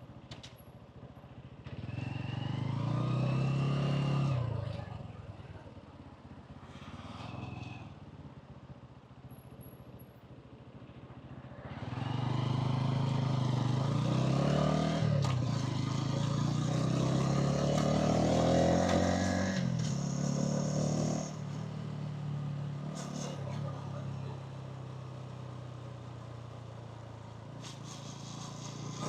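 Hansom Bike Benet 125cc motorcycle engine and exhaust accelerating briefly about two seconds in, then easing off. From about twelve seconds it pulls hard again for several seconds, its pitch climbing, dropping back and climbing again, before settling to a quieter steady run.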